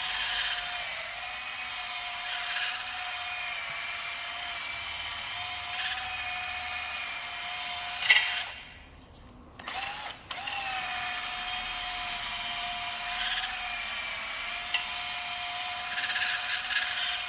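Electric drill spinning a flap wheel to sand out the inside of a leaf spring eye, with a steady motor whine and short scraping bursts as the wheel bites. The drill stops about eight and a half seconds in and starts again about a second and a half later.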